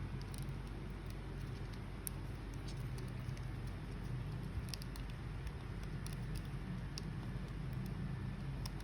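Steady low background rumble with faint, scattered small ticks and clicks.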